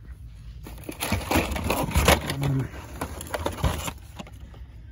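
Plastic blister-packed die-cast cars on card backs rustling, crackling and clattering against each other and the cardboard case as a handful is pulled out. The dense handling noise starts about a second in and dies down near the end.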